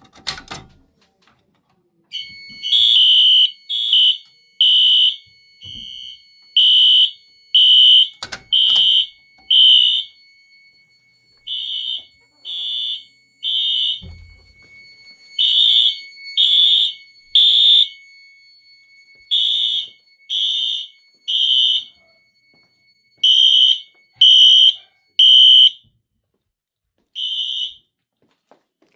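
Wheelock fire alarm horn/strobes sounding after a pull station is pulled. Their beeps start out uneven and out of step, then settle into a steady pattern of three beeps and a pause as the devices sync. A faint steady tone runs underneath.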